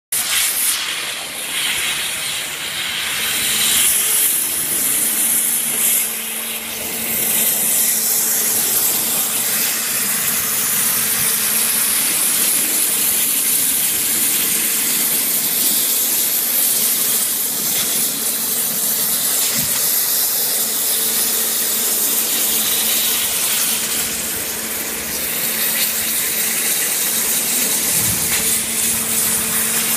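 A five-axis high-pressure waterjet cutting through 40 mm aluminium honeycomb: a loud, steady hiss of the jet, with a faint steady hum underneath.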